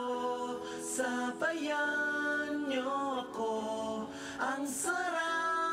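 Vocal music: singing in long, held notes that change pitch every second or so, with short hissing 's' sounds between phrases.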